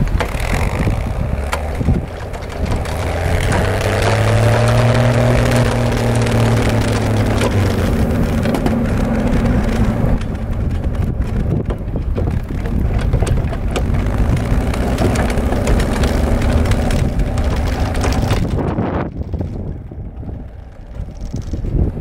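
1968 Bombardier tracked snow machine running and working as it shoves a deep pile of snow with its front plow blade, the engine's pitch rising and falling under the load. The sound thins out near the end as the machine is farther off.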